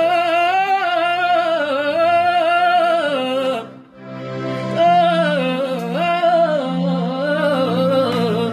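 A man singing a slow lament without words, in a wavering, heavily ornamented line with vibrato, accompanied by a piano accordion holding steady bass notes. The melody breaks off a little under four seconds in and resumes about a second later.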